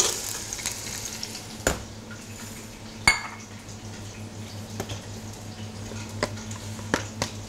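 Onion sizzling as it drops into hot olive oil in a saucepan, the hiss strongest at the very start and fading. After that come a few sharp clinks of small glass bowls and utensils on a stainless steel counter, the loudest ringing clink about three seconds in, over a steady low hum.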